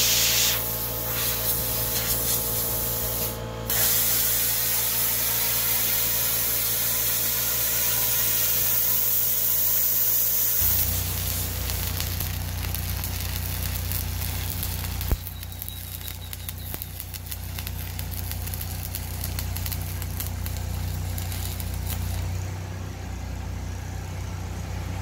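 Electric arc welding on a steel pipe grill body: the arc makes a steady hissing crackle. A low hum runs underneath and grows louder about ten seconds in.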